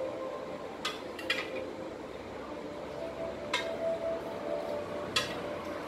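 A steel bowl and utensils clinking against cookware four times, light and well spaced, as rice water is sprinkled by hand over the layered rice in a pot.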